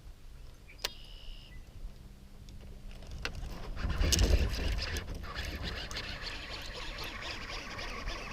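A bass striking a topwater frog lure with a loud splash about four seconds in, followed by steady fine clicking and rustling as the fish is fought in on the reel.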